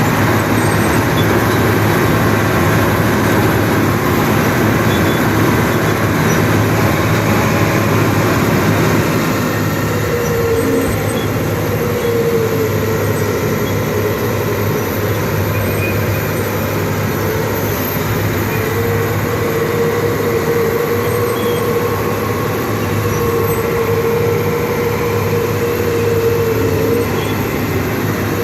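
Old International bulldozer's engine running steadily as the machine works, with a steady higher whine coming in about ten seconds in and again from about eighteen seconds.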